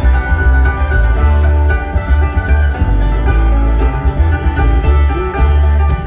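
Live bluegrass string band playing an instrumental passage, with a mandolin picking over a heavy upright bass line and no vocals.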